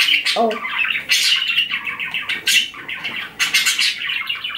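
Pet budgerigars chattering: a rapid, continuous stream of short high chirps and warbles.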